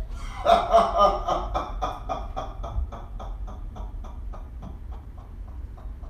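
A man laughing heartily: a long string of quick laughs, about four a second, loudest at first and fading away over about five seconds.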